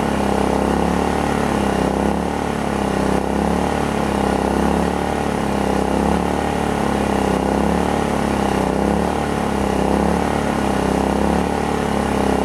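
Predator inverter generator's single-cylinder four-stroke engine running steadily under a moderate load of about 600 watts from an air conditioner and refrigerator.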